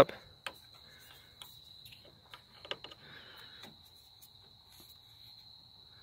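Faint, steady, high-pitched trill of crickets, with a few soft clicks from the soldered battery cable being handled.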